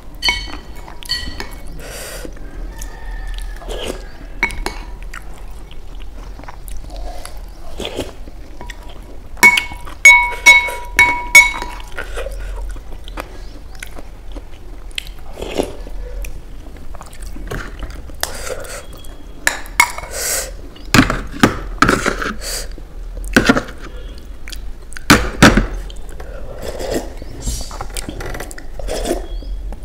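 Close-up eating sounds: a ceramic spoon scraping and clinking against a glass bowl, which rings with each strike, in a quick run of clinks about a third of the way in. Slurping and chewing of soupy instant noodles follows, with a series of loud slurps in the second half as the soup is drunk.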